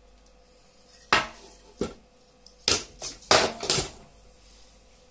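Hard plastic knocking and clattering on a tabletop in several quick clacks over about three seconds, as a plastic ear-defender cup and small parts are handled and set down.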